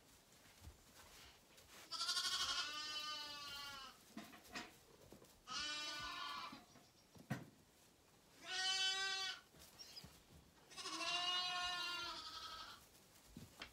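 Zwartbles lambs bleating: four loud bleats, each about a second or more long, a couple of seconds apart.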